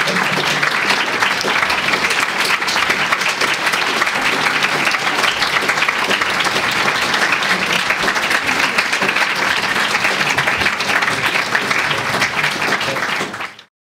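An audience applauding steadily, dense clapping that cuts off abruptly near the end.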